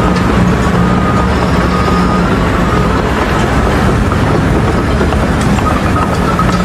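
Steady, loud machine noise with a constant low hum, like a heavy engine or vehicle running.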